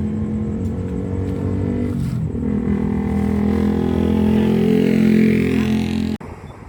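Toyota Vigo pickup engine running after its starter was repaired, a steady note that shifts about two seconds in and grows louder and a little higher, then cuts off abruptly near the end.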